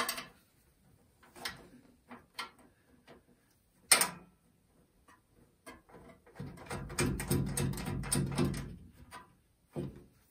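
Handling noises from a sheet-metal parts washer cabinet: scattered clicks and knocks, a sharper knock about four seconds in, then a low rumbling scrape lasting about two and a half seconds, like a panel or tray being slid.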